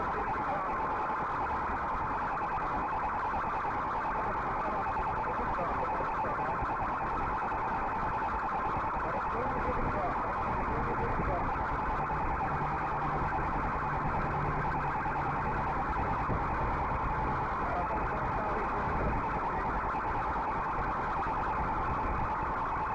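Electronic siren sounding a fast, continuous warble without a break.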